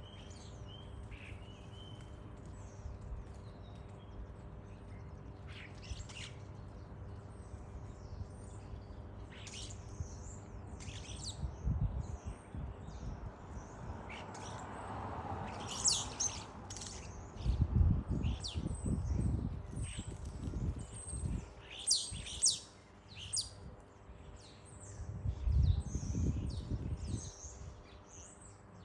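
A flock of starlings calling: many short chirps, clicks and whistles, thicker in the second half. Bursts of low rumble come in a little before the middle and again near the end.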